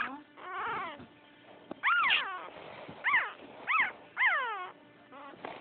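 French poodle puppy whimpering: about five short, high whines in a row, each arching up and then sliding down in pitch, the first faint and the later ones louder.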